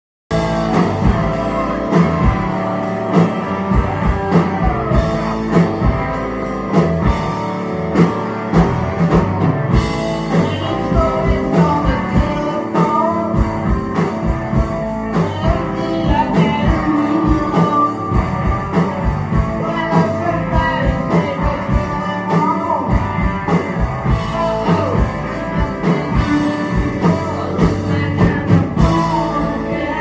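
A rock band playing live at full volume: electric guitars, bass guitar and a drum kit keeping a steady beat, with singing.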